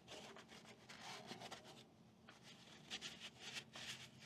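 Faint, uneven rubbing strokes of a paper shop towel wiping grime off a cast-iron tractor engine block.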